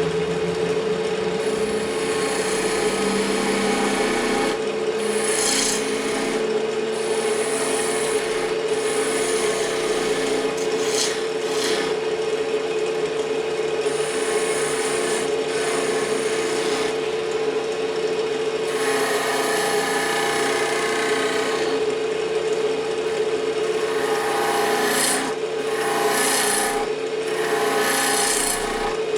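Wood lathe running with a steady hum while a turning tool cuts a spinning fatwood (resinous pine) blank. The scraping and cutting noise swells and eases with each pass, heaviest about two-thirds of the way through and again near the end.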